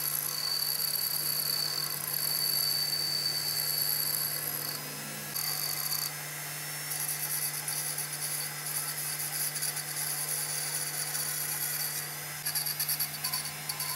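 Handheld electric die grinder with a small abrasive point whining at high pitch as it grinds a firing pin turning in a lathe chuck; the whine breaks off briefly a couple of times and turns choppy near the end. The lathe runs underneath with a steady low hum.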